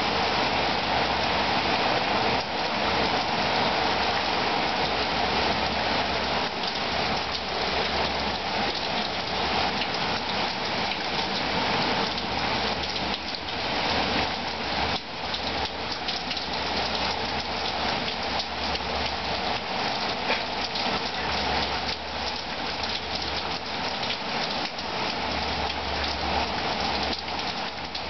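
Heavy hurricane downpour: rain pouring steadily and hissing on the street and parked cars.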